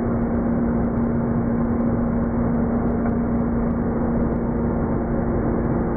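Leaf blower running steadily, blowing a stream of air, with an unchanging hum.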